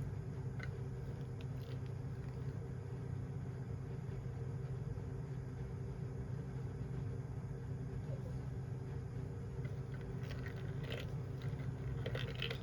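A steady low hum runs throughout. Near the end come a few soft clicks and scratchy rustles from a kitten at play.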